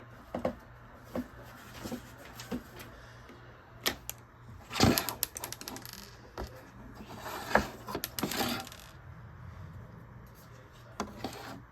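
Small plastic Lego pieces clicking and rattling as they are handled: scattered single clicks, and two longer spells of rattling, about five seconds in and again from about seven to nine seconds.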